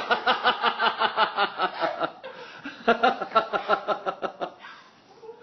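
A person laughing in quick rhythmic bursts, two long runs with a short pause for breath about two seconds in, trailing off near the end.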